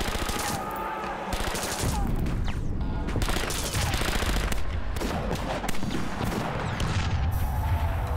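Battle gunfire: rifles and machine guns firing rapidly in a dense, continuous fusillade.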